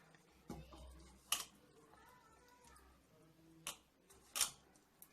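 A few sharp, separate clicks and taps of kitchen handling: chicken leg pieces being picked up from a bowl of marinade, with items touching the bowl.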